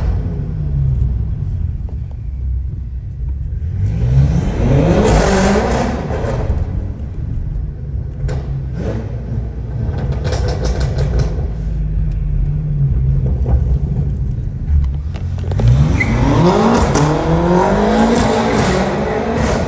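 Stage 2 tuned BMW F10 M5 Competition's twin-turbo V8 accelerating hard twice, its pitch climbing steeply about four seconds in and again in the last few seconds. A steady low engine rumble runs between the two pulls.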